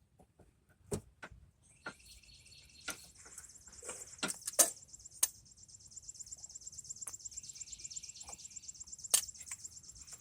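Scattered sharp clicks and knocks of hand tools on metal, the loudest about four and a half seconds in. Behind them, from about two seconds in, insects trill steadily with a fast, even pulse.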